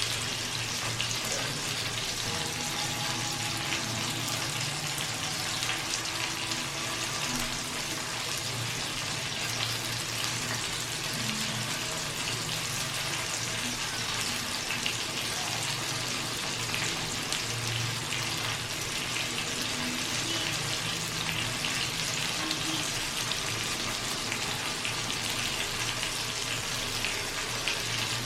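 Chicken roasting: a steady sizzle of hot fat with dense fine crackling, over a low hum.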